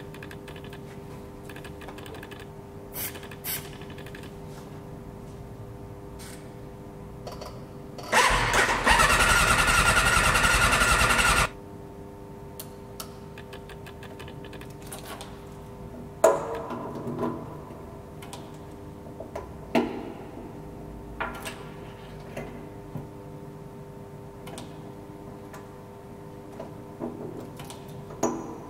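Suzuki RF600R's electric starter cranking its inline-four engine for about three seconds, starting about eight seconds in, without the engine catching, on a bike laid up over winter. A few sharp clicks and knocks follow later, over a faint steady hum.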